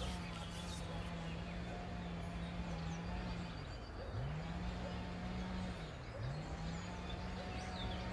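A steady low hum that dips in pitch and comes back up twice, about halfway through and again two seconds later, with faint bird chirps in the background.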